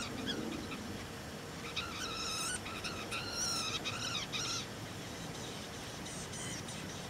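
Red-breasted nuthatch nestlings begging inside a nest box while an adult feeds them at the entrance hole. A burst of rapid, high calls comes from about two to four and a half seconds in, with a few fainter calls later.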